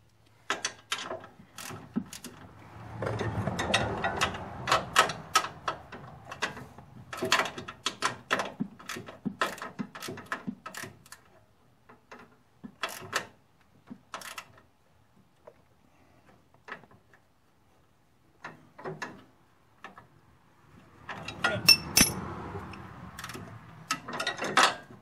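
Hand ratchet wrench clicking in quick runs as a bolt is turned, with pauses between the runs.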